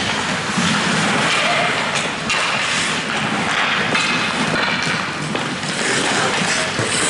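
Ice hockey game sounds: skates scraping the ice and sticks striking the puck, with spectators' voices in the background.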